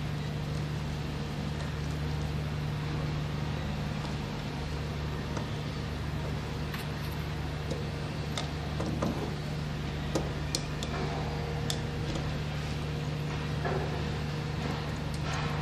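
Screwdriver clicking and scraping on the screw terminals of a three-phase changeover switch as wires are fastened, a few sharp ticks mostly in the second half, over a steady low hum.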